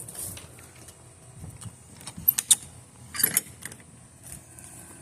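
A few sharp clicks and clinks about two seconds in, then a short clatter a little after three seconds, as objects are handled and set down, over a faint steady hum.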